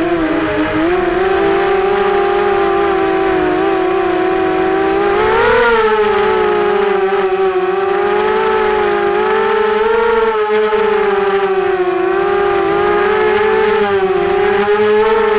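Brushless motors and propellers of a 250-size FPV racing quadcopter, heard up close from its onboard camera: a steady whine that rises and falls in pitch with the throttle, climbing sharply about five and a half seconds in.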